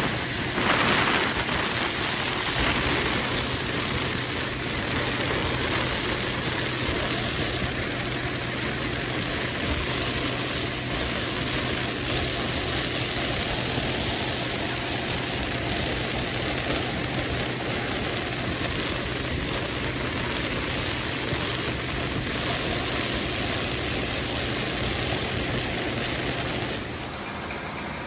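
Soybeans being unloaded into a grain bin: a steady rushing of flowing grain over a constant low engine hum, which eases off near the end.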